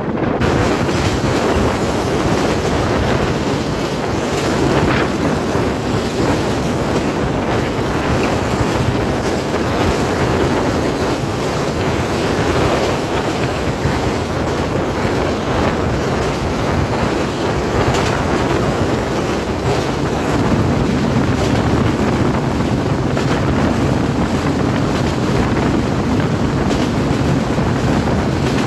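Bangladesh Railway passenger train running at speed, heard from an open carriage window: steady noise of the carriage's wheels on the rails mixed with strong wind buffeting the microphone.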